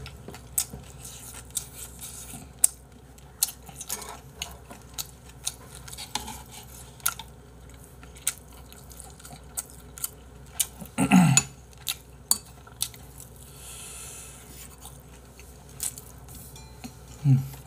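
Utensils clicking and scraping against bowls while eating, in scattered sharp clicks, with chewing in between. About eleven seconds in there is a short, loud, low vocal sound, and another brief one near the end.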